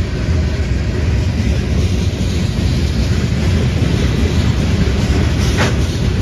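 Freight cars of a CSX manifest train rolling past close by: a steady low rumble of steel wheels on rail. A brief sharp noise cuts through about five and a half seconds in.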